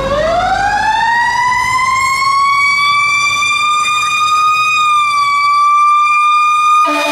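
Pierce tower ladder fire truck's siren winding up in a rising wail, then holding a steady high pitch with a slight dip. Near the end a horn blast cuts in, a chord of lower tones.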